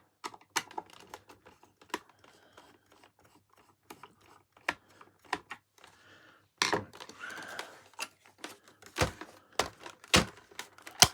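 A Phillips screwdriver working on the plastic housing of a vacuum cleaner, making irregular small clicks and taps, with a few louder knocks in the last few seconds.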